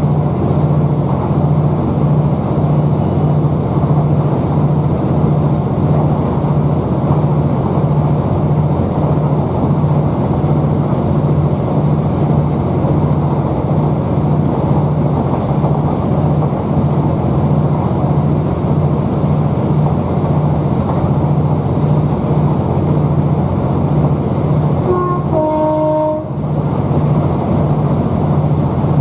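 Underfloor MAN D2876 diesel engine of a Class 769 bi-mode unit running, heard inside the passenger coach as a steady drone with an even low beat, over the rumble of the train on the rails. About 25 seconds in, a short two-note horn sounds, a higher note and then a lower one.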